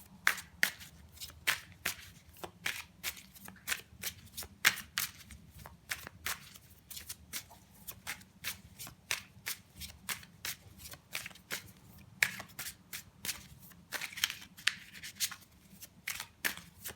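A deck of tarot cards being shuffled by hand: a continuous run of short card slaps and flicks, about three a second, uneven in strength.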